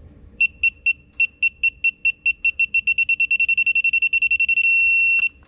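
Digital torque adapter on a ratchet beeping as a connecting-rod bolt is tightened toward its preset 45 ft-lb: high beeps that come faster and faster as the torque climbs, turning into one steady tone once the target is reached. The tone stops with a click near the end.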